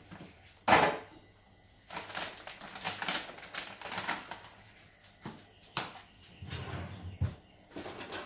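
A sharp knock about a second in, then irregular crinkling and clicking as a plastic bag of dry noodles is handled.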